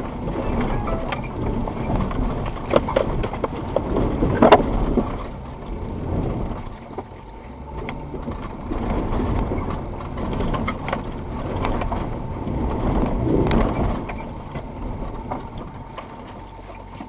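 Four-wheel-drive vehicle's engine running under load as it crawls over a rocky track, heard from inside the cabin, with several sharp knocks and rattles from the body and suspension as the tyres go over the rocks.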